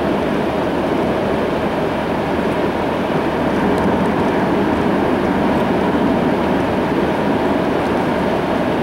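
Steady road and tyre noise with engine hum from a car cruising along an open road, heard from inside the cabin.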